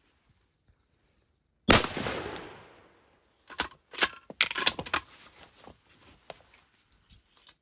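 One rifle shot about two seconds in, its report fading over about a second, then the bolt of the bolt-action rifle being worked: a quick run of sharp metallic clicks and clacks, with a few lighter ticks after.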